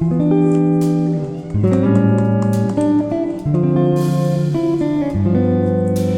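Background music: plucked guitar chords with a steady beat.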